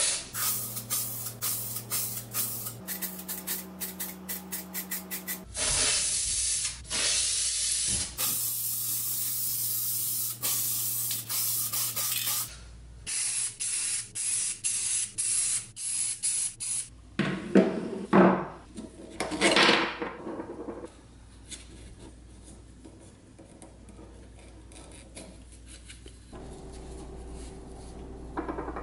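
Paint spraying onto a hanging sheet-metal grinder part: quick short hissing bursts, then one long continuous spray of several seconds, then more short bursts. About two-thirds of the way in come two brief louder noises.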